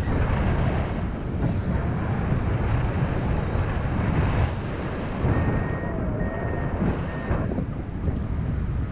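Steady wind buffeting the microphone of a camera mounted on a paraglider's risers in flight. A faint high steady tone sounds twice over the rush a little past the middle.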